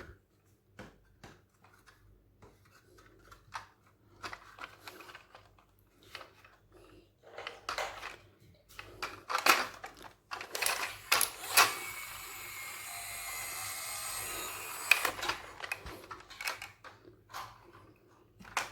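Toy cars being handled and rummaged out of a box: scattered plastic and metal clicks and clatters, with a steadier rustling, rattling stretch of a few seconds in the middle.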